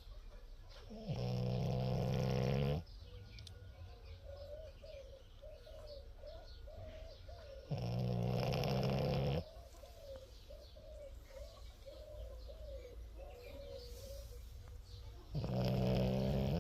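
Dog snoring: three loud, deep snores about every seven seconds, each lasting under two seconds, with a faint wavering tone in the pauses between them.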